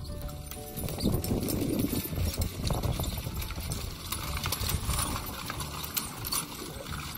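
Horse-drawn seed drill rattling and clattering as its coulters drag through stony, cloddy soil behind a pair of Shire horses, a busy run of irregular knocks and scrapes that grows louder about a second in.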